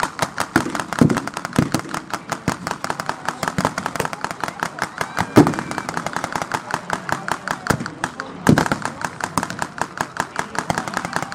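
Blank gunfire in a World War I battle reenactment: a fast, steady crackle of shots, about seven a second, with a few louder bangs, the loudest about five and a half and eight and a half seconds in.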